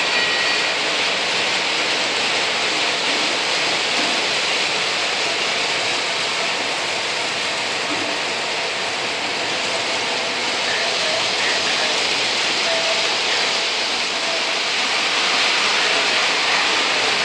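O gauge model freight trains running on a three-rail metal track layout: a steady, even rushing rumble of wheels on the rails and locomotive motors, with no distinct events.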